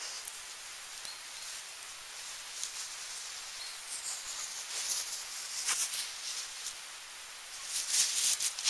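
A terrier moving through grass close to the microphone: irregular rustling of grass and fur, with louder bursts midway and near the end.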